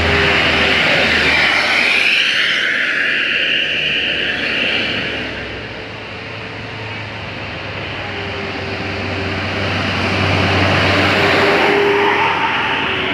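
Buses passing close by on a climb, a loud mix of engine drone and road noise that eases off about six seconds in and swells again as the next one comes up.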